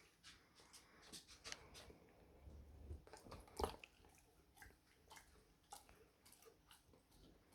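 Faint sounds of a dog chewing a meatball: scattered soft wet clicks and smacks, the loudest a little past halfway.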